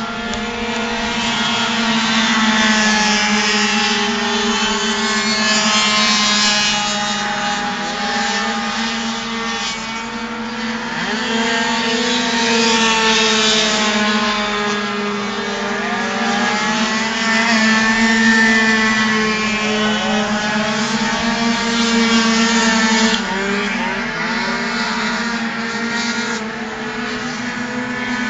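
Several tuned two-stroke racing scooters revving hard around the track. Their high engine notes climb and drop over and over as they accelerate, brake and pass by, over a steady low hum.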